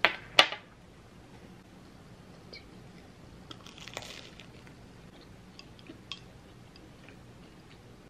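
Two sharp knocks, about half a second apart, as things are set down on a tabletop, then faint bites and chewing of toast with a few small clicks.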